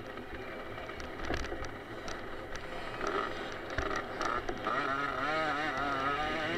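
Small 50cc two-stroke motocross bike engine racing over a rough dirt track, heard from the bike itself. From about halfway its pitch wavers quickly up and down as the throttle is worked, with a few sharp knocks scattered through.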